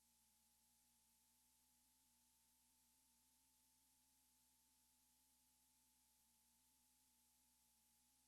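Near silence: only a faint steady hiss with a faint low hum.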